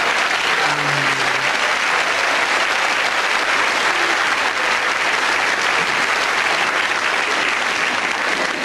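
A large theatre audience applauding, a long steady round of clapping after a comedy punchline.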